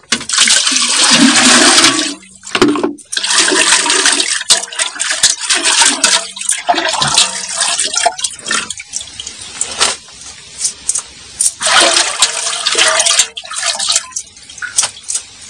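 Water poured from a metal bucket into a large metal pot of sweet potato leaves, a loud rush for about two seconds. Then hands swish and splash the leaves through the water to wash off the soil, with another loud rush of water about twelve seconds in.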